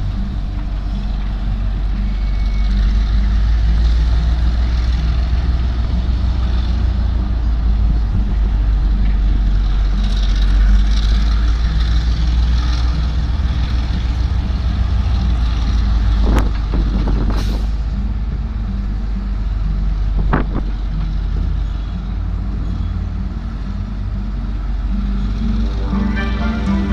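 EMD GR12 diesel-electric locomotive running past with a train of container flat wagons, a loud steady low engine rumble. A few brief high-pitched sounds cut through about two-thirds of the way in.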